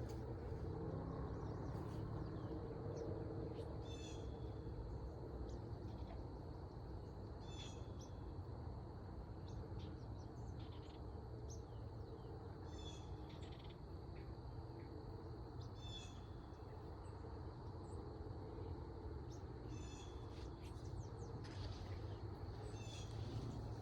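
A bird calling over and over, a short high call about every four seconds, over a steady low hum.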